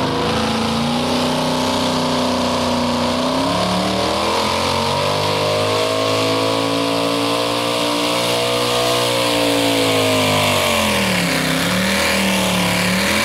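Supercharged engine of a modified two-wheel-drive pulling truck running at full throttle as it pulls the sled down the track: the revs climb over several seconds, hold high, then fall back and waver near the end.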